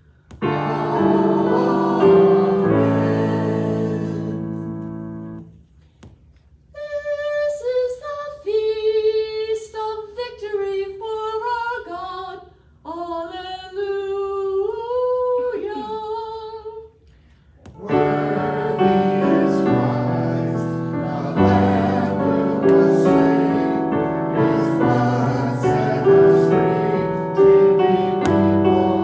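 Liturgical music in a church service: piano chords with singing, then a single voice chanting unaccompanied in two phrases, and from about eighteen seconds the piano comes back in, accompanying singing.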